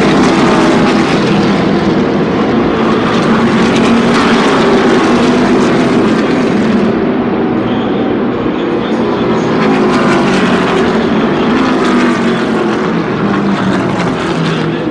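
NASCAR Xfinity Series stock cars' V8 engines running at speed on the oval. It is a loud, continuous engine sound whose pitch rises and falls as cars go by.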